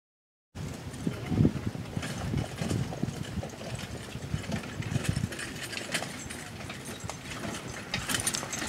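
Silence for about half a second, then the hoofbeats of a four-pony team on turf, a run of dull uneven thuds with the carriage and harness rattling.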